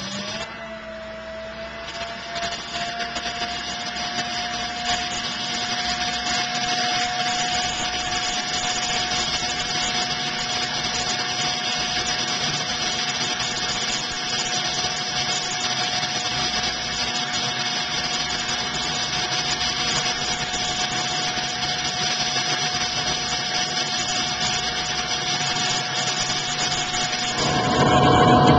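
Toro 51599 Ultra electric leaf blower/vacuum switched on atop a pellet stove's 4-inch chimney liner, its motor whining up to speed and then running steadily with a high whine over the rush of air blown down the vent. Near the end the sound grows louder and fuller.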